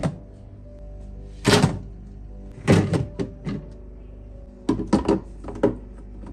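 A series of sharp clunks and knocks as a refrigerator's glass shelves and plastic door bins are handled, coming irregularly, some in quick clusters, over steady background music.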